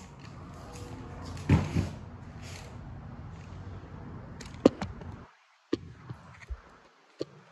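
Handling noise of a phone being carried and set down: rubbing and bumps, two knocks about one and a half seconds in and a few sharp clicks before five seconds in, then much quieter with only small taps once it is propped in place.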